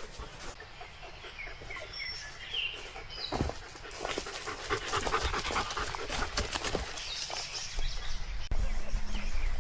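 A dog moving about close by, with rustling and crackling, and a few short high chirps about two seconds in.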